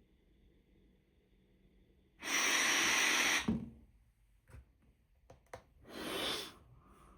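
Air rushing through a CPAP machine's hose and mask in two bursts, each lasting about a second, with a few small clicks between them.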